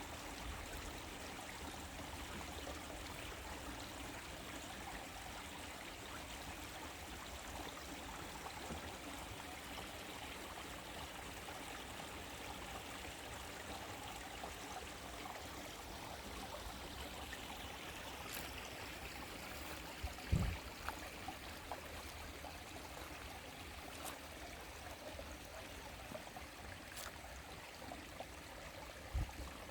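Small stream flowing steadily, with a few faint ticks and two dull low thumps, one about two-thirds of the way through and one near the end.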